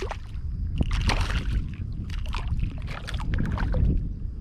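Shallow water sloshing and splashing in irregular bursts as a wading angler handles a freshly landed speckled trout, over a steady low rumble.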